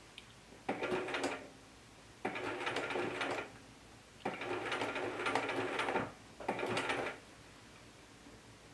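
Bernina 1080 Special sewing machine with a walking foot stitching slowly in four short runs, stopping and starting between them. The last run is brief, and the machine stops about seven seconds in.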